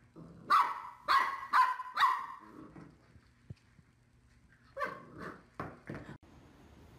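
A puppy barking: four sharp, loud barks in quick succession in the first two seconds, then a few softer barks a few seconds later.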